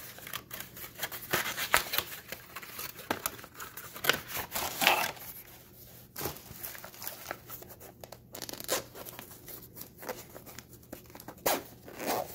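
Rustling, crinkling and scraping of a cardboard sunglasses box and its packaging being handled and opened, in irregular bursts, loudest about two and five seconds in.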